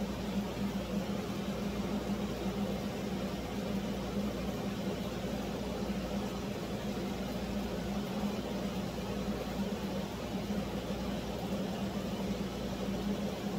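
Steady, unchanging machine hum with a low drone and no distinct knocks or clicks.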